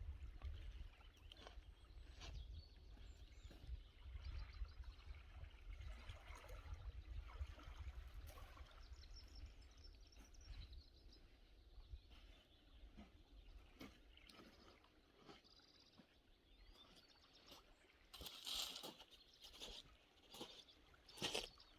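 Near silence: quiet outdoor ambience with a faint low rumble, a few faint bird calls in the middle, and some soft clicks near the end.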